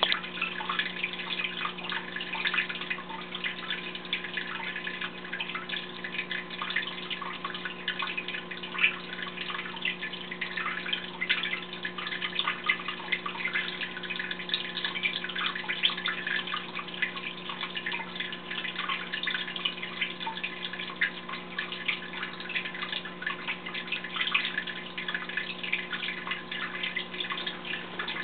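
Small waterfall in a crab tank, splashing and trickling steadily onto rock and water, over a steady low hum.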